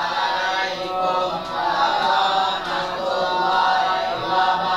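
Many voices chanting together in unison, drawn out and sing-song.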